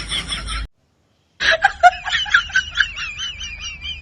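High-pitched laughing sound effect edited in, in quick ha-ha pulses of about five a second. It cuts off abruptly under a second in, and after a moment of dead silence a second high-pitched giggling laugh starts, rising and falling in pitch.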